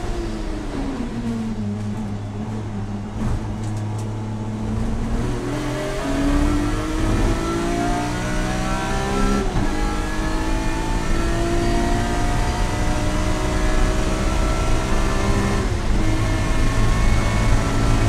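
In-car sound of a BMW race car's engine on track. The pitch falls as the car slows for a corner, then rises under full acceleration. It drops sharply at upshifts about nine and a half and sixteen seconds in, then climbs again.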